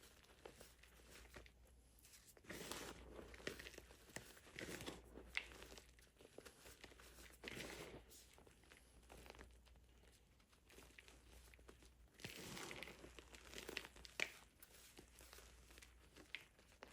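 Reformed blocks of gym chalk mixed with baking soda and cornstarch being crushed, crunching and crumbling in short bursts every couple of seconds.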